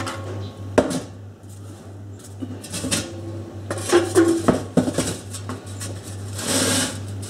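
Metal chimney flue pipe knocking and scraping against a board template as it is handled and turned. There are a few separate knocks, one with a short metallic ring, and a brief rustle near the end, over a steady low hum.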